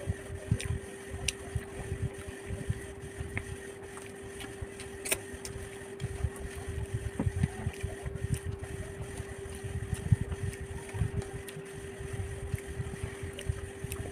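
Close-miked eating sounds: irregular low, soft thumps of chewing with a few faint clicks, over a steady hum.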